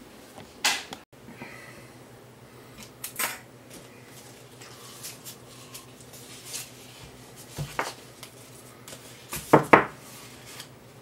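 A roll of aluminium foil tape and a circuit board being handled by hand: scattered sharp crackles and clicks, the loudest two close together near the end.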